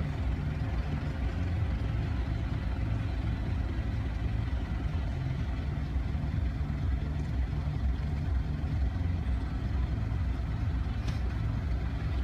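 Car driving slowly, its engine and tyres on the road making a steady low rumble heard from inside the car.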